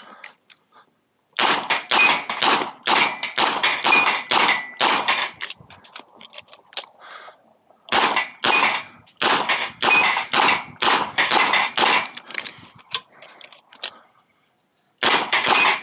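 Rapid strings of 9mm revolver shots from a Smith & Wesson 929, several shots a second, with steel targets pinging on some hits. Two pauses of about two seconds, with only faint clicks, break the strings: the revolver being reloaded.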